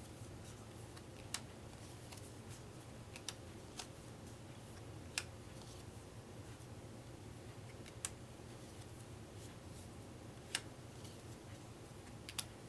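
Small cardboard playing cards being counted out one at a time: about eight faint, sharp card snaps or taps, irregularly spaced a second or two apart, over a low steady room hum.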